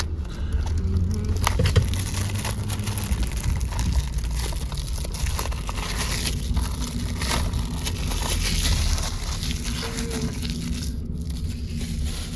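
Plastic wrapping on a DVD being torn open and crinkled: irregular crackling and tearing, thickest about midway, over a steady low rumble.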